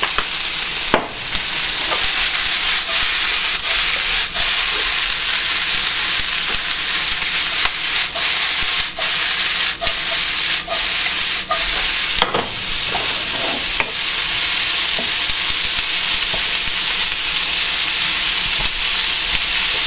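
Cabbage, onion and garlic sizzling steadily in bacon fat in a skillet while the pan is tossed and a wooden spoon stirs through the vegetables. Scattered clicks and knocks of spoon and pan run through the sizzle, with a sharper knock about a second in and another about twelve seconds in.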